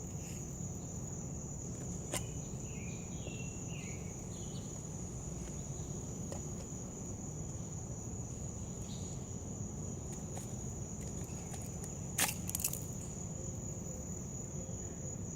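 Insects trilling with a steady, unbroken high note over a low background hum, with a few light clicks about two seconds in and again near twelve seconds.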